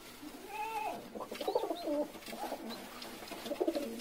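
Domestic pigeons cooing softly: a few short coos, each rising and falling in pitch.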